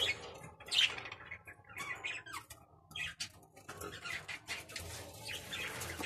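Budgerigars chirping in short, scattered calls.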